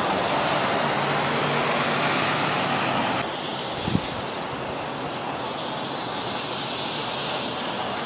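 Steady rushing noise of a rain storm. It drops to a somewhat quieter level about three seconds in, and there is a single short thump about a second later.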